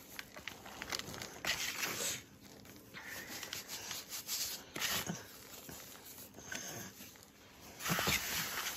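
Hands pressing, rubbing and squeezing crumbly white powder in a bowl, giving soft crunching and rubbing sounds. They come in three main bursts, the loudest near the end.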